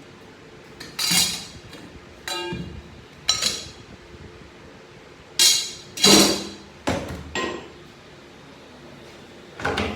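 Metal internal parts of a 6HP21 automatic transmission clanking and clinking as the drums are pulled out and handled. There are about eight separate knocks, some ringing briefly.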